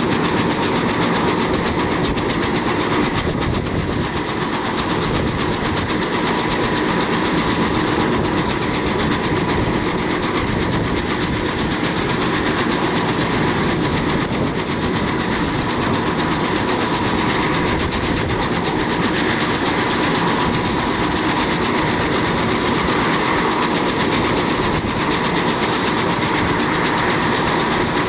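Kaman HH-43 Huskie helicopter running on the ground, its two intermeshing rotors turning at a steady speed: an even, rapid rotor chop over a steady engine whine.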